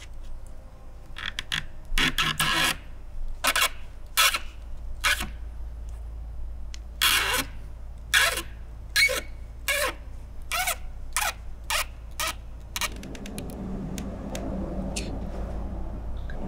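Strands of rattan cane being pulled through a woven cane chair seat: a run of dry scraping strokes, some quick and some drawn out. About three-quarters of the way through the strokes stop, leaving softer steady room noise with a low hum.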